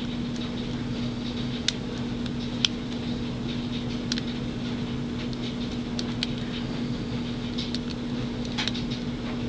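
Scattered small metallic clicks and scrapes of a short-hook lock pick and tension wrench working the spool pins of a Master Lock Pro Series 6840 padlock, coming at irregular intervals over a steady background hum.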